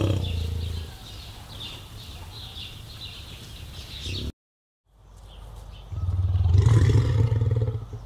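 Musk ox giving deep, low grunting bellows: a short one at the start and a longer, louder one from about six seconds in. Small birds chirp faintly in between.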